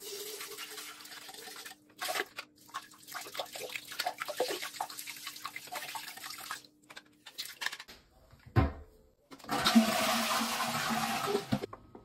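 Dirty-water tank and filter of a Tineco S3 wet/dry vacuum handled over a toilet bowl: water splashing and plastic parts clicking and clattering. Near the end, a thump and then a toilet flushing for about two seconds.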